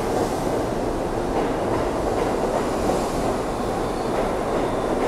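R62A subway cars running along an underground station platform: a steady, loud noise of steel wheels on rail.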